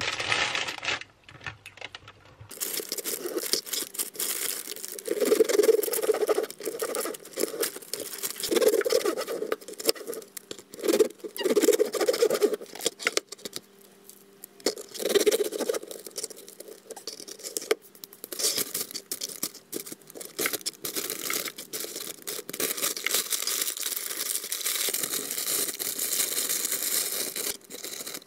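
Crusty baguette crackling and tearing as it is broken apart by hand, with a run of crisp crunches from the crust, loudest in bursts in the first half.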